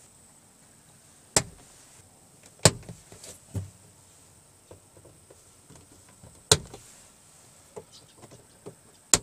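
Sharp plastic clicks from the door-card push clips as their retainers are pressed in with a thin screwdriver: four loud clicks at uneven gaps, with fainter ticks and scrapes between them.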